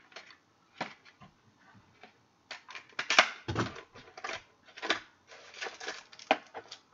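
Football trading cards and their pack wrappers being handled: a run of irregular short crinkles, rustles and clicks, loudest about three seconds in.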